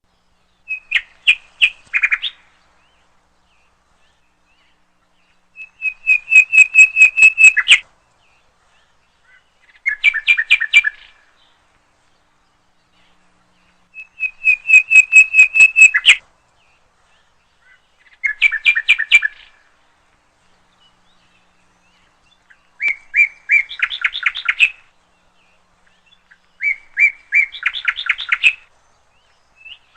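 African red-eyed bulbul calling: seven short phrases of rapid, repeated chirping notes, each a second or two long, separated by several seconds of silence.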